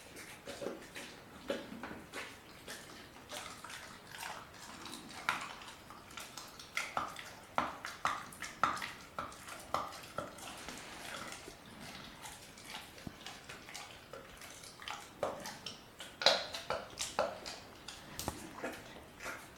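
A German Shepherd puppy chewing a raw chicken quarter: wet, smacking mouth sounds with irregular sharp cracks, loudest about three-quarters of the way through.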